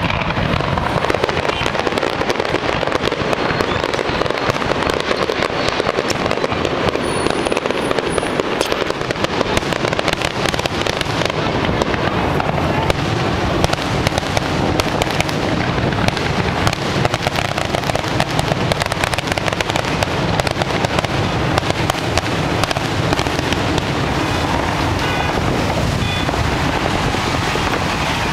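Fireworks display going off without pause: a dense, rapid crackle of many small pops.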